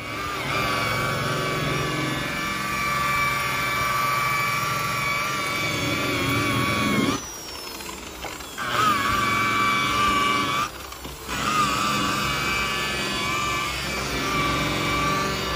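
Makita electric rotary polisher running with a steady whine as its pad buffs a boat's fiberglass gelcoat. Twice it briefly slows off and then spins back up, once about 7 seconds in and once about 11 seconds in.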